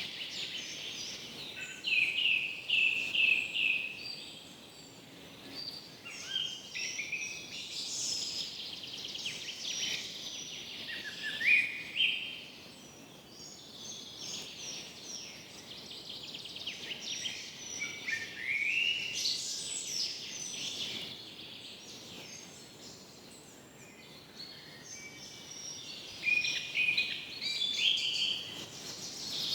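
Several songbirds singing in a forest, with overlapping trills, chirps and rising whistled phrases; the loudest bursts come a couple of seconds in, around the middle and near the end.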